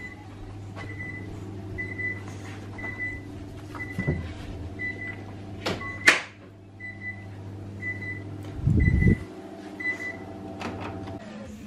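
Oven timer alarm beeping, a short high beep about once a second, stopping near the end as a button on the oven's control panel is pressed. A sharp knock about halfway through, and a low steady hum under the beeps.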